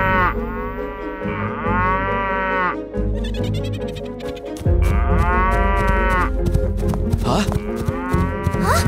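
Cartoon cows mooing: several long, drawn-out moos, each rising and falling in pitch, with background music underneath that gets louder about halfway through.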